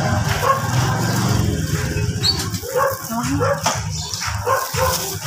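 Motorcycle engine idling with a steady low pulse as the bike pulls in and stops. From about halfway through, a small dog gives a run of short, high yips over it.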